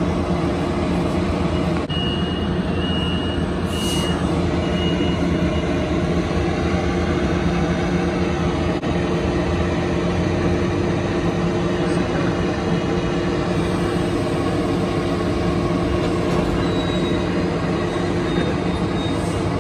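Metrolink commuter train standing at the platform, its equipment running in a steady, even drone. A few short high beeps and a brief hiss come a few seconds in.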